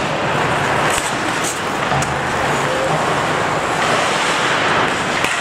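Ice hockey game ambience in a rink: a steady noisy wash from skates on ice and the arena, with a few sharp clicks of sticks or puck about one to two seconds in.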